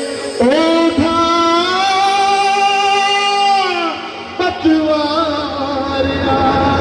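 Live devotional bhajan singing with musical accompaniment: the singer holds one long steady note for about three seconds, then goes into a shorter, wavering phrase.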